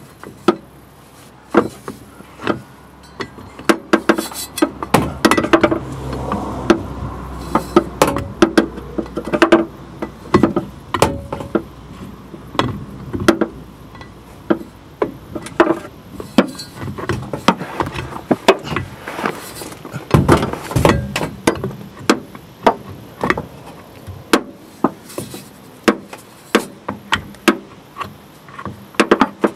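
Irregular knocks and clunks of a VE Commodore's driveshaft and its rubber drive coupling being lifted and worked into place against the rear differential flange, some of them sharp taps of metal on metal.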